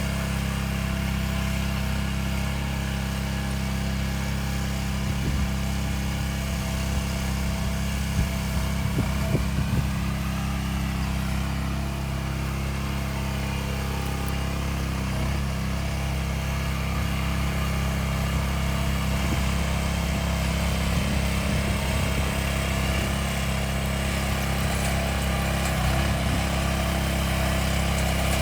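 Engine of the machine digging the trench, running steadily at an even speed, with a few short knocks and clanks about five to ten seconds in.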